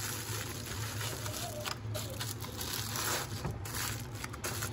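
Aluminium foil crinkling in irregular scrunches as a hand presses a foil-wrapped package down into an air fryer basket, over a low steady hum.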